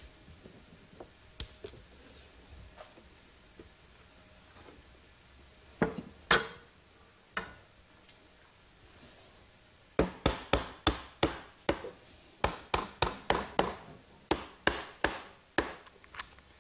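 A glued mahogany frame-and-panel being assembled and clamped with bar clamps: a few knocks of wood and clamp parts, then from about ten seconds in a steady run of sharp clicks, roughly three a second, as the clamps are set and tightened.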